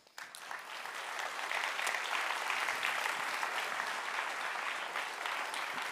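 Conference audience applauding at the end of a talk, the clapping building up over the first second or so and then holding steady.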